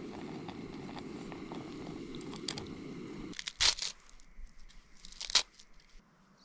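Dry, brittle sheets of seaweed crumbled and torn by hand over a pot, giving two loud, brief crackling crunches about a second and a half apart. Before them a steady low rushing noise stops suddenly about three seconds in.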